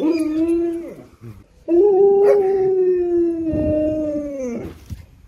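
Husky howling: a short howl, then a longer one of about three seconds that drops in pitch as it ends.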